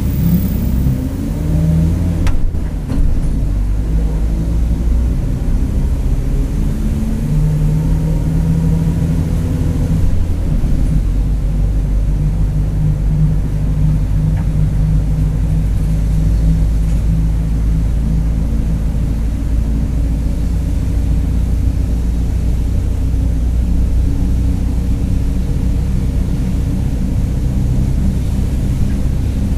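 Mercedes-Benz OF-1721 bus's diesel engine pulling away, rising in pitch in the first couple of seconds with a short knock, then running steadily under way. A thin whine runs over the engine, the differential growling.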